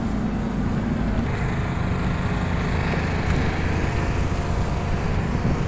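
Engines running steadily: a low rumble with a steady hum whose pitch shifts about a second in.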